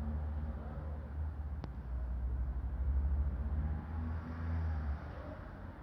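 Low, steady rumble of a running engine or motor, wavering slightly in pitch, with a single faint click about a second and a half in.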